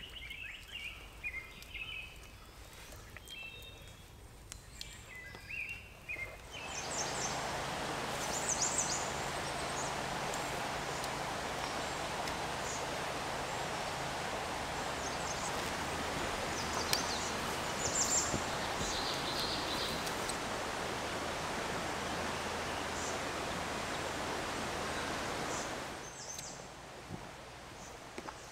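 Steady rush of flowing creek water with birds chirping over it, starting abruptly about seven seconds in and stopping a couple of seconds before the end. Before it comes quieter woodland ambience with scattered bird chirps.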